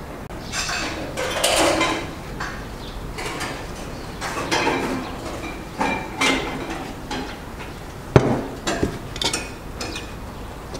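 Kitchen utensils clinking and scraping against metal: a ladle working in a large pot, in irregular short clatters, with a sharp knock about eight seconds in.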